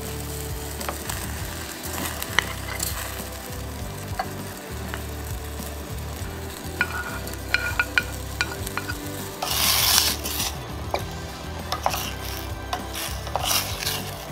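Sweet-and-sour sauce bubbling in a stainless steel pot as pineapple, wood ear mushrooms and sliced chilies go in, with scattered clicks from the ingredients and utensils. A louder rush of sizzling comes about ten seconds in, then a wooden spoon stirring and clicking against the pot.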